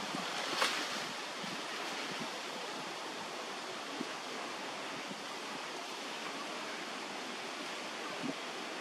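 Steady rushing outdoor background noise, with a brief rustle about half a second in.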